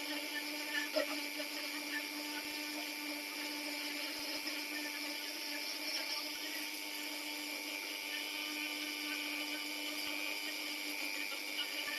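Dremel rotary tool running at a steady speed through its flexible shaft, the carving bit grinding into a small wooden rose part. The motor holds one constant pitch throughout, with the rough grinding of the bit on the wood.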